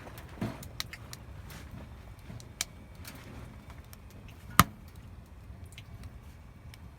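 Burning firewood crackling, with sparse irregular pops and one sharp crack about four and a half seconds in.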